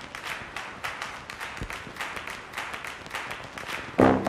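A quick, uneven patter of sharp taps, about five a second. Near the end, swing music with brass comes in loudly.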